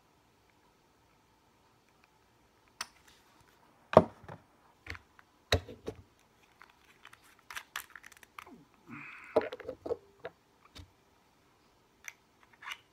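Handling clicks and knocks from refilling a vape: a sharp knock about four seconds in, the loudest, then scattered taps and clicks as the metal top cap of the rebuildable dripping atomizer is fitted back on, with a short rustle about nine seconds in.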